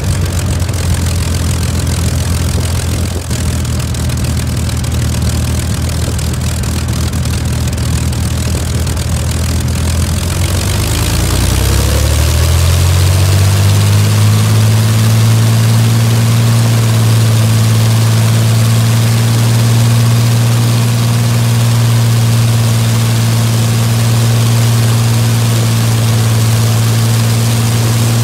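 Rolls-Royce Merlin 22 V12 aero engine ground-running with its propeller turning: a steady low-speed run, then opened up about eleven seconds in, its pitch rising over a few seconds and settling at a steady, louder, higher speed.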